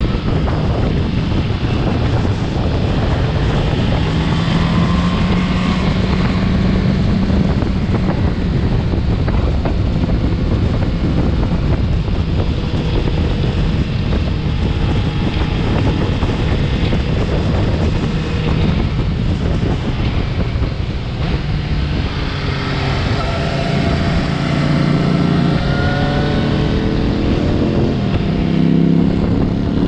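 Suzuki GSX-S750's four-cylinder engine running under way, heard from the rider's position under heavy wind noise on the microphone. The engine note climbs in pitch about five seconds in and again in several short rises near the end as the bike accelerates.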